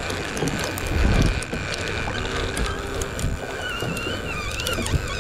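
Boat engine running with wind on the microphone and scattered sharp clicks, and a wavering high whine starting a little before the end.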